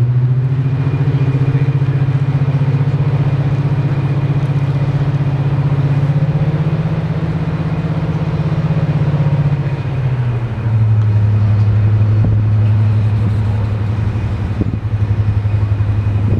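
Diesel locomotive engine running with a steady low drone, its note stepping down to a lower pitch about ten seconds in.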